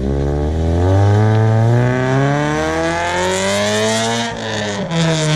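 Sports coupe fitted with a catless front pipe, accelerating hard away. The loud exhaust note climbs steadily in pitch, drops at a gear change about four seconds in, then climbs again.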